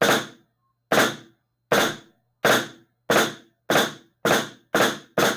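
Alternating flams struck with sticks on a snare drum: about nine sharp strokes, each dying away quickly, steadily speeding up from about one a second to about two a second.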